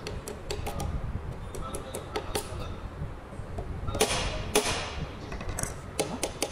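Hand tools clicking and tapping on a tractor dual-clutch pressure plate assembly while its release fingers are worked on, with two louder, longer rasps about four seconds in.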